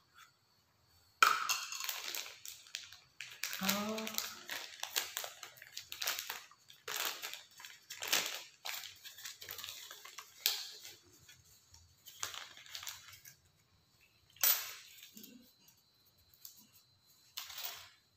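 Plastic packaging and small headset parts being handled by hand, crinkling and rustling in irregular bursts. The sharpest crackles come about a second in and again about three-quarters of the way through.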